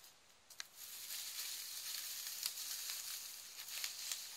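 Dry wood-wool packing straw rustling, with small clicks, as it is pulled out of a wicker hamper. It starts about a second in.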